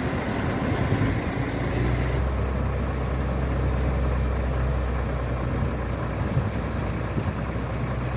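Heavy construction machine's engine running steadily at a low idle; its low hum gets stronger about two seconds in.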